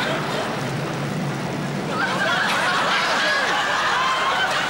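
Studio audience laughing and chuckling, many voices at once, swelling about two seconds in.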